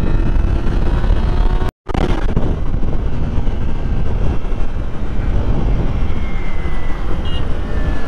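Kawasaki Ninja motorcycle's engine and exhaust under way, over a dense low rumble, with the engine note falling as the bike engine-brakes. All sound cuts out for a moment just under two seconds in.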